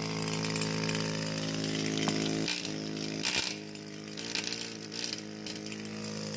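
Rusty pneumatic chipping hammer running on compressed air with a steady mechanical buzz. Its trigger cannot turn it on and off. About two and a half seconds in, the buzz falters and runs rougher and quieter, then steadies again near the end.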